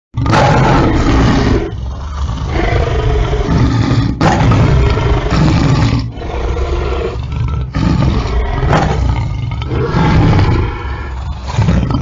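Lion roaring: a string of loud, long roars, each lasting one to two seconds, following one another with almost no pause. It starts suddenly from silence.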